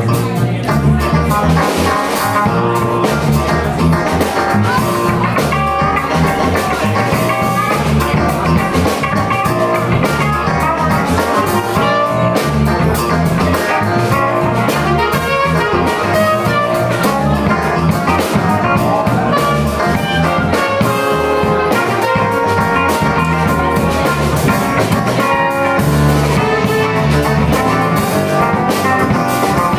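Live band playing an instrumental funk groove: electric guitar over a rhythmic bass line and drum kit, with horns in the mix.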